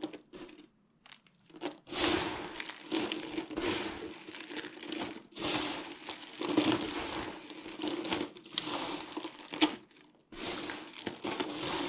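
Dry soap being crushed, crunching and crackling. A few sharp clicks come first, then from about two seconds in long runs of crunching with short breaks between them.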